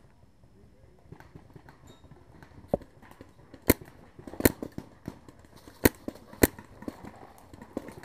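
Paintball fire: five sharp cracks at uneven intervals over a few seconds, with lighter ticks and rustling between them.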